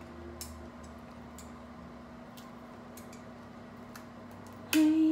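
Faint, scattered small clicks of boiled seafood shells being cracked and peeled by hand, over a steady low hum.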